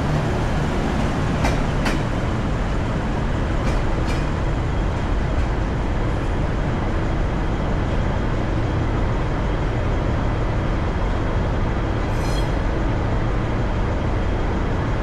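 V/Line VLocity diesel multiple unit pulling out, with a steady engine rumble and rolling noise. A few sharp clicks come in the first few seconds, and a brief high-pitched squeal sounds about twelve seconds in.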